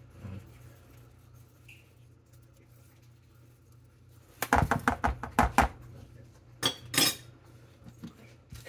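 Metal seasoning shaker being shaken and knocked over a mixing bowl: a quick run of sharp metallic clinks about halfway through, then two more single clinks.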